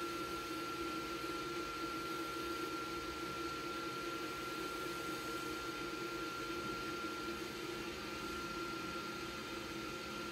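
MakerBot Sketch Sprint 3D printer's fans running with a steady hum and a thin, steady high whine while the nozzle preheats toward 220 °C.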